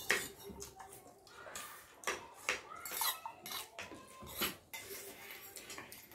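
Metal forks clinking and scraping against plates as people eat noodles, several sharp clinks spread out at uneven intervals.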